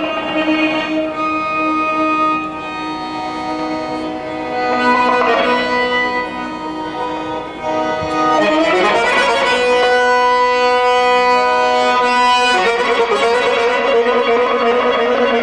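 Azerbaijani garmon, a button accordion, playing a melody in long held, reedy notes that bend at times, growing louder about eight seconds in.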